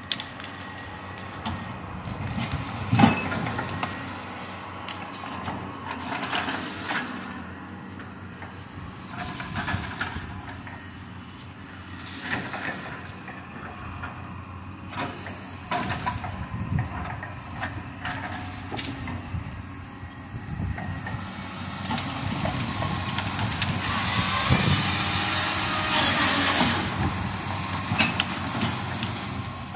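Cat knuckleboom log loader's diesel engine running under hydraulic load as it drags pine stems through a pull-through delimber, with scattered knocks and cracks of limbs and wood, the sharpest about three seconds in. A few seconds of loud scraping hiss come near the end as a bundle slides through the delimber.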